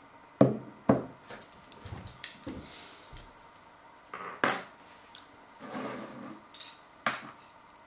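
A ceramic bowl set down on a kitchen worktop with two sharp knocks, followed by scattered handling clatter and rustling. Near the end a metal spoon clinks against the bowl.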